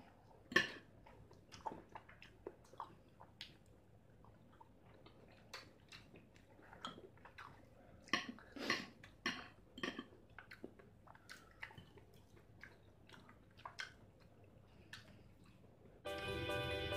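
Close-up eating sounds: a fork clicking and scraping on a plate, with chewing, in faint, scattered bursts. Music starts about a second before the end.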